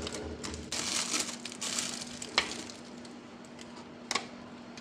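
Clear plastic cake wrapping crinkling and rustling as sliced fruit cake is unwrapped and handled. Near the middle and again near the end come two light clicks.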